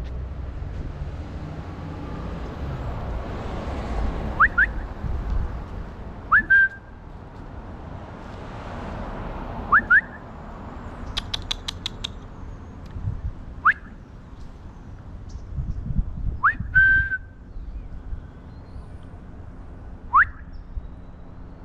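A person whistling to call a cat: short rising whistles, some in pairs and some ending on a brief held note, repeated every few seconds.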